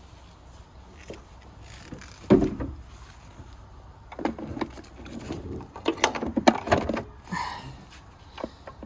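A new Banner car battery being lowered into a car's engine-bay battery tray: one heavy knock about two seconds in, then a run of knocks and scrapes as it is shuffled into place.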